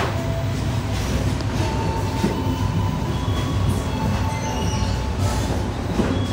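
Passenger train coach heard from inside as the train pulls slowly out of the station: a steady low rumble of the moving carriage, with a few faint thin high tones over it.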